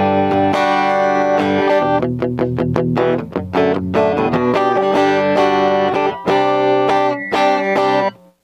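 JCraft S1H electric guitar being played: held chords, then a run of quickly picked single notes about two seconds in, then more chords, stopping abruptly just before the end.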